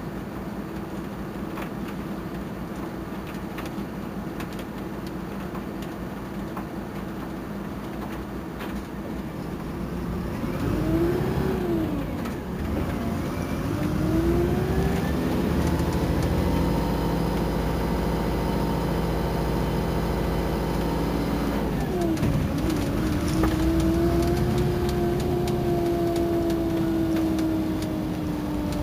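Iveco Crossway bus engine running steadily for about ten seconds, then accelerating. The engine note rises and drops twice as the gearbox changes up, holds steady and loud at speed, drops again with another change about twenty-two seconds in, then sinks slowly.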